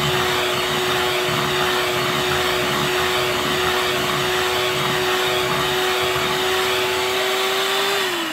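Electric hand mixer running at low speed, its beaters working through cake batter, with a steady motor whine. Near the end it is switched off and the whine falls in pitch as the motor spins down.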